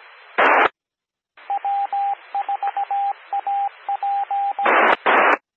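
FM repeater's Morse code identifier: a single steady beeping tone keyed in long and short beeps that spell W4AP, over the hiss of the repeater's carrier. It is framed by short bursts of squelch-tail static, one just before the ID and one as the carrier drops near the end.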